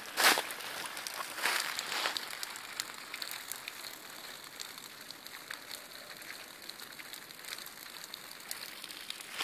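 Footsteps crunching through dry fallen leaves, three or four steps in the first two seconds. After that comes a faint, steady patter of running water.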